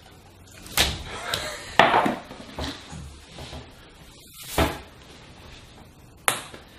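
A drinking glass knocking and clattering on a kitchen countertop: four separate sharp knocks spread over several seconds, with quieter handling sounds between them.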